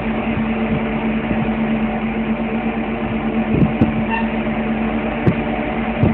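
Vehicle engine running steadily with a low drone, with a few knocks and rattles in the second half.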